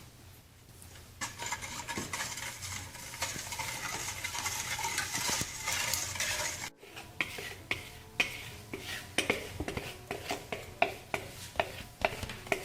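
Cookie dough being stirred by hand in a mixing bowl: a scraping, rustling stir for several seconds. After an abrupt break, the utensil knocks and clicks against the bowl again and again.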